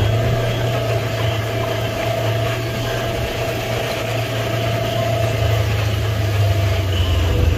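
Side-by-side utility vehicle's engine running steadily as it creeps along, a low drone with a faint steady whine above it.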